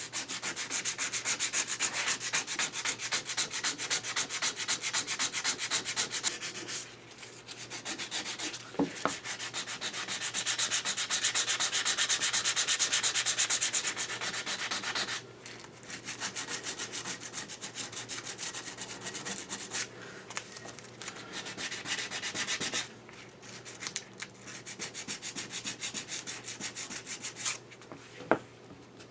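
Rapid back-and-forth hand sanding of a metal lathe part, smoothing off casting sand marks. It comes in several spells of quick strokes, with short breaks at about seven, fifteen and twenty-three seconds in.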